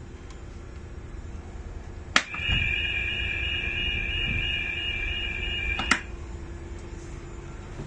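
Trawler's crew call alarm sounded from the 'All areas' push button, calling the crew to muster: a click as the button goes down about two seconds in, a steady two-tone alarm held for about three and a half seconds, then a click as it is released. The vessel's steady low engine drone runs underneath.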